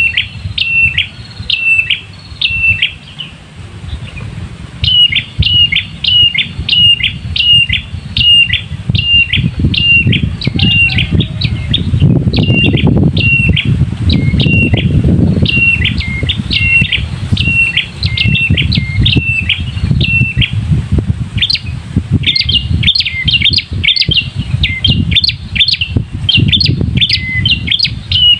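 Red-headed prenjak (tailorbird) calling: a fast, even series of short, sharp notes, about two a second, in long runs with brief breaks. A low rumbling noise runs underneath and is heaviest around the middle.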